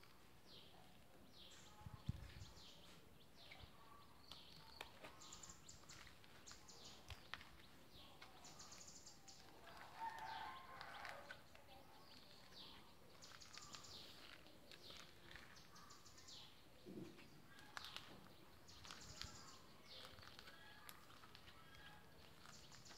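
Faint birds chirping: many short high calls scattered throughout, with a slightly louder call about ten seconds in.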